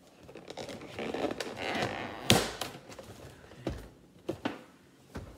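Tape peeling and a paperboard gift box being torn open by hand: a rasping rip over the first two seconds, then a sharp snap just after two seconds in, followed by a few lighter knocks of the box being handled.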